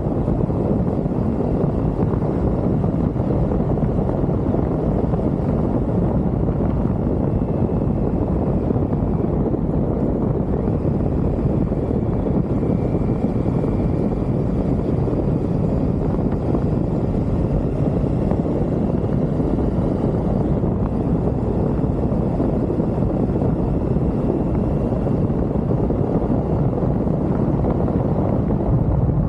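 Triumph Tiger motorcycle on the move: steady engine and road noise mixed with rushing wind on the microphone, unbroken throughout, with a faint whine that drifts up and down in pitch.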